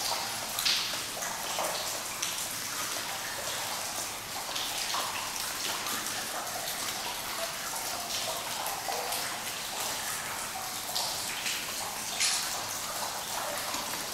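Water dripping steadily from a leaking tunnel roof, sounding almost like rain: an even patter with scattered louder drops splashing.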